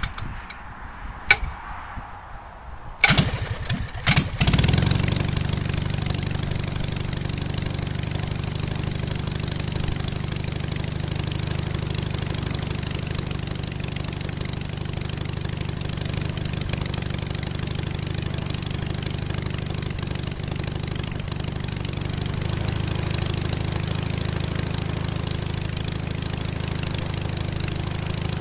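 A hand-propped 37 hp half-VW airplane engine, an air-cooled two-cylinder opposed engine turning a wooden propeller, starts up. A couple of sharp clicks come first, then the engine catches with a few uneven firings about three to four seconds in and settles into a steady run.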